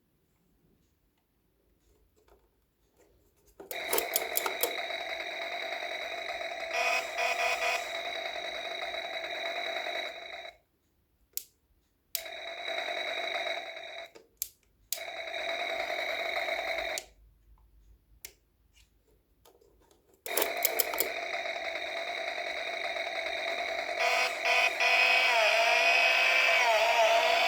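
Battery-powered Stihl toy chainsaw playing its electronic engine sound in runs of several seconds, cutting off and starting again, with a few short blips in the gaps. Over the last few seconds the sound gets louder and wavers up and down in pitch, like revving.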